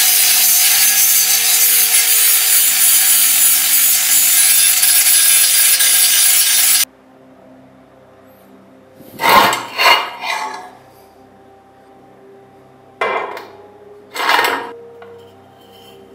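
Angle grinder with a sanding disc abrading the tin body of an oil lamp, a loud even grinding that cuts off abruptly about seven seconds in. Two short bursts of the thin metal lamp parts being handled follow.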